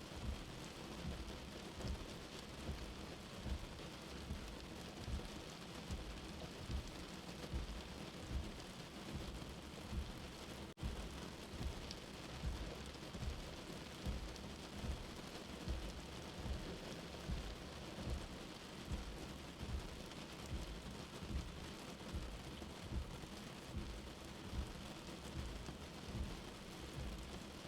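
Steady rain with a soft, low heartbeat thump repeating about every second and a half. The sound drops out for a moment about eleven seconds in.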